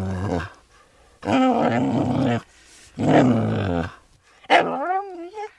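Dog giving a run of long, low drawn-out calls, about a second each, then a higher howl that wavers in pitch near the end.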